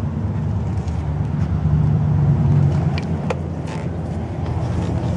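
Chevrolet 454 (7.4 L) big-block V8 of a 1998 Silverado 3500 dually idling steadily, with a couple of sharp clicks about three seconds in.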